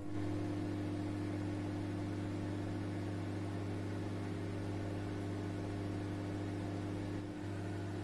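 LG microwave oven running, a steady low hum, while it cooks a glass dish of khaman dhokla batter on a five-minute cycle. The hum breaks briefly about seven seconds in.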